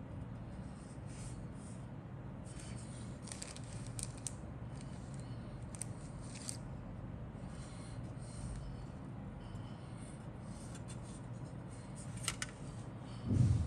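Plastic model-kit sprue being handled: scattered light clicks, scrapes and rubbing over a steady low hum, with a sharper click about twelve seconds in and a dull thump near the end.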